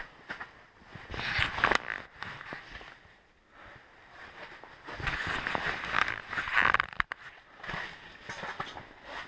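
Rustling and scraping of clothing and gear close to the microphone, in two louder bouts of a second or two each, with a few light clicks and knocks.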